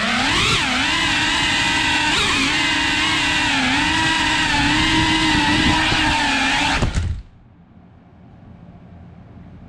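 FPV quadcopter's brushless motors and propellers whining, the pitch rising and falling as the throttle changes in flight. The motors cut out suddenly about seven seconds in, leaving only a faint low hum.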